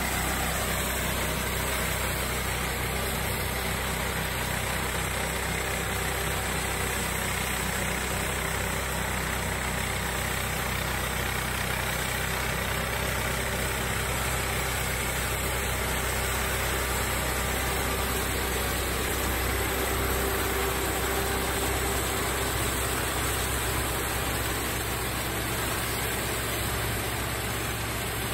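Small crawler combine harvester working in the field: its single-cylinder, air-cooled Changchai 192F diesel engine runs steadily at working speed, with no let-up.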